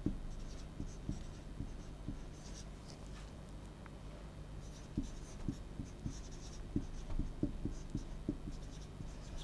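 Marker pen writing on a whiteboard: short, irregular strokes with faint squeaks and taps, a quieter pause in the middle, over a steady low room hum.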